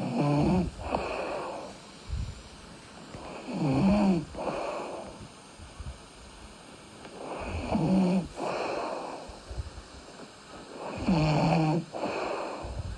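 A sleeping person snoring: four snoring breaths about every four seconds, each a low-pitched snore followed by a breathy rush of air.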